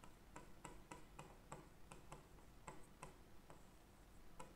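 Marker pen writing on a whiteboard: faint, irregular taps of the tip against the board, several a second.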